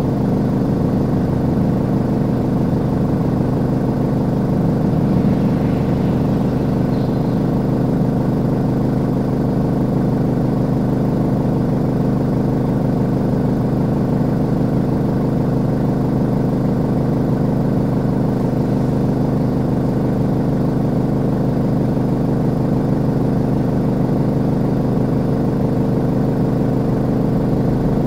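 An engine running steadily at a constant pitch, a low hum with no change in speed, heard from inside a vehicle.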